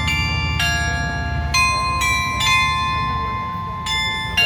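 Tower carillon bells playing a slow tune: about seven single notes struck in turn, each left ringing into the next, over a low rumble.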